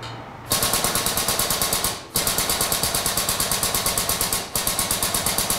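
Pedal-operated hydraulic pump of a car-body straightening bench chattering in fast, even pulses, about seven a second, as it draws the chain tight to pull out the damaged middle of the body. It runs in three stretches, with short breaks about 2 seconds in and near 4.5 seconds.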